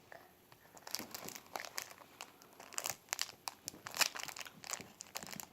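Foil wrapper of a Pokémon card booster pack crinkling in irregular crackles as it is opened.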